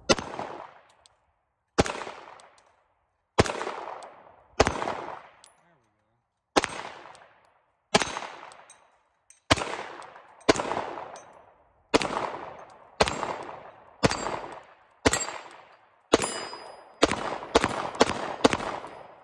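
Glock P80, a 9mm Gen 1 Glock 17 reproduction, fired in about seventeen single shots, one to two seconds apart at first and quicker near the end. Each shot is a sharp crack followed by about a second of echo.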